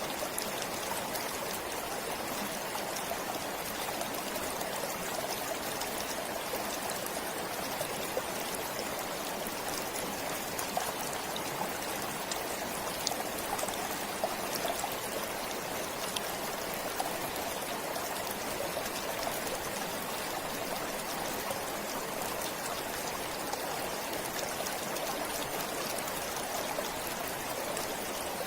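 A forest stream flowing steadily, with water trickling and many small splashes ticking through it.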